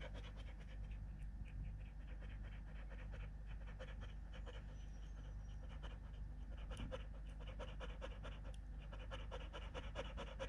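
Kelpie panting fast and evenly, with open-mouthed breaths, faint: anxious stress panting of a dog afraid of the storm.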